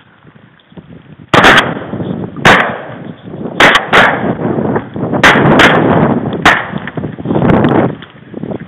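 Shotgun volley from duck hunters firing at passing ducks: about eight or nine loud shots over some six seconds, starting about a second and a half in, more than one gun shooting, each shot trailing off in a rolling echo.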